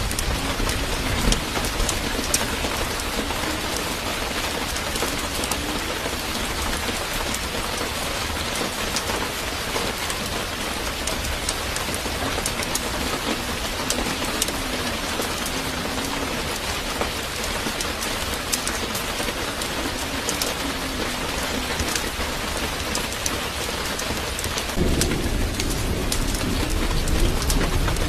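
Steady rain falling, an even hiss dotted with small drop ticks, with a low rumble coming in near the end.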